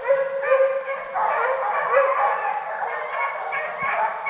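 A pack of deer hounds baying together, several overlapping voices calling without a break: the dogs running a deer on its scent.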